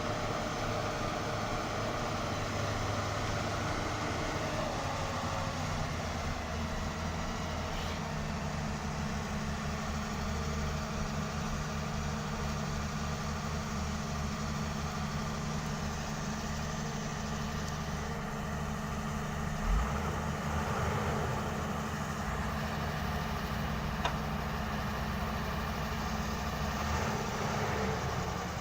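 Diesel engine of a Volvo 220 excavator running steadily as it works. Its note shifts a few times and drops just before the end. There is one dull thump about two-thirds of the way through.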